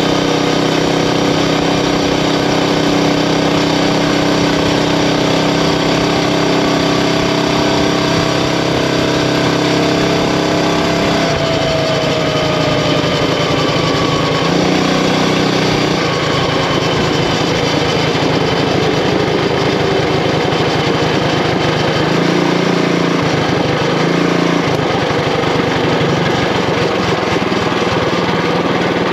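Predator Ghost 212cc single-cylinder four-stroke engine running on a mini bike under test. It holds a steady pitch for the first ten seconds or so, then the revs change, with the pitch falling off in places later on.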